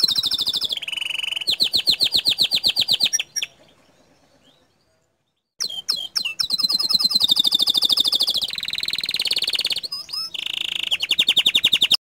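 Domestic canary singing long runs of fast, rapidly repeated high trill notes, the rapid-fire 'tembakan' phrases prized in training songbirds. The song breaks off for about two seconds a third of the way in, then resumes.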